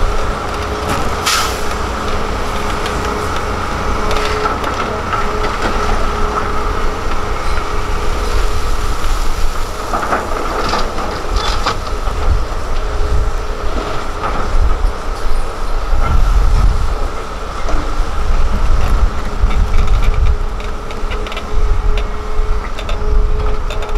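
Hitachi Zaxis 330LC excavator's six-cylinder diesel running hard with a steady whine, as it digs soil and swings to dump it into a dump truck. A few sharp clanks and knocks of the bucket and falling soil and rock come through the rumble.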